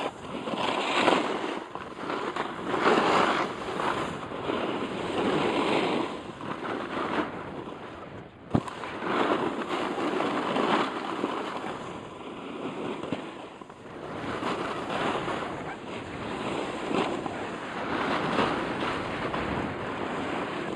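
Snowboard edge scraping and carving over packed, tracked snow, surging and easing every couple of seconds with the turns, with wind rushing over the microphone. A single sharp click cuts through about halfway.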